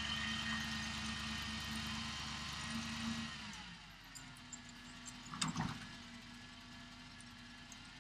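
Boom truck's engine running at raised revs to work the boom, then slowing to a low idle about halfway through. A few short knocks follow a little later.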